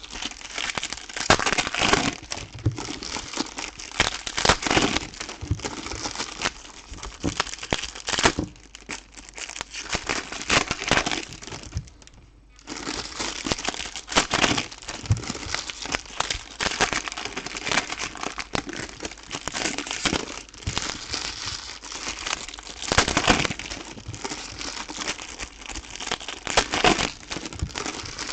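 Plastic and foil card-pack wrapping crinkling in irregular bursts as packs of trading cards are handled and opened by hand, with a brief lull about twelve seconds in.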